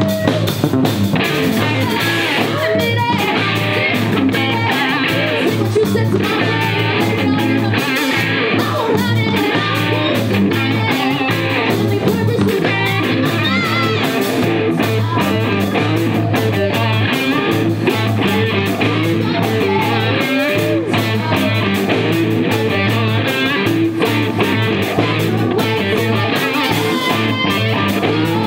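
Live rock band playing: electric guitar, bass guitar and drum kit together, loud and continuous, with a woman singing lead near the end.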